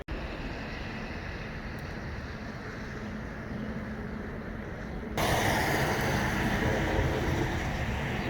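Excavator engines running steadily during a house demolition, with wind on the microphone. About five seconds in, the sound jumps suddenly louder with a harsh, broad rush of noise.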